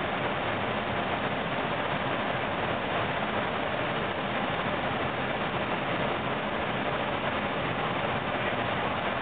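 Cockpit noise of an Airbus A321 on approach: a steady, even rush of airflow and engine noise with no distinct tones or changes.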